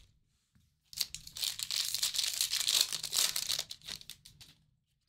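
Plastic trading-card pack wrapper being torn open and crinkled, a dense crackle that starts about a second in and runs for nearly four seconds before tailing off in a few last crinkles.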